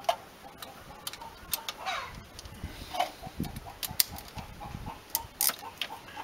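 Irregular small clicks and taps of hands handling ignition wiring and small metal parts at a car's distributor.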